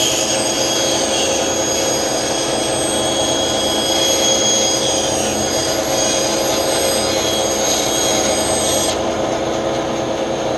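Bandsaw running with its blade cutting through a wooden board. There is a steady motor hum and a high whine from the blade in the wood, and the cutting sound stops abruptly about nine seconds in as the blade exits the board, leaving the saw running free.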